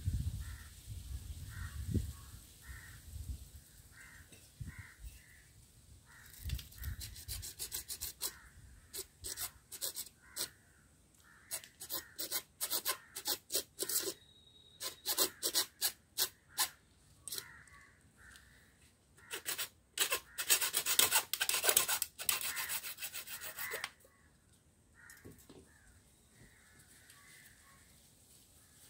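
Hacksaw cutting a grey PVC pipe with quick back-and-forth strokes. The strokes come in short runs and build to a dense, steady run before stopping near the end.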